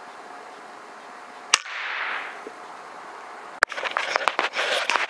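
A single sharp air-rifle shot about a second and a half in, followed by a brief rustle. Near the end comes a sharp click and then a rapid run of clicks and scuffling.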